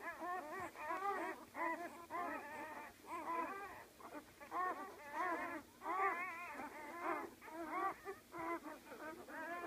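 Newborn Great Dane puppies squealing and whimpering, several at once, in a steady stream of short cries that waver up and down in pitch.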